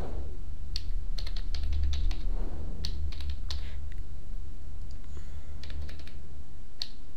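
Typing on a computer keyboard: a run of irregular key clicks over a steady low hum.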